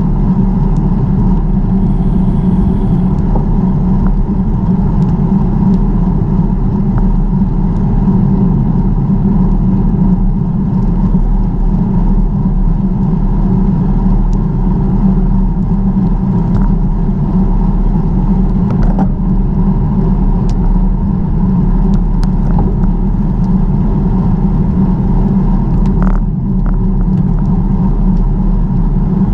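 Steady low rumble of wind and tyre noise on a camera riding along on a bicycle, with a few faint clicks.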